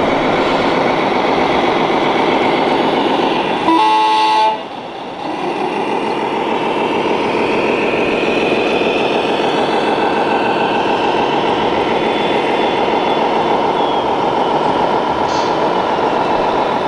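A horn sounds once for about a second, about four seconds in, most likely an RC model truck's sound-module horn. Around it runs a steady, dense din of model-vehicle running sounds and hall noise.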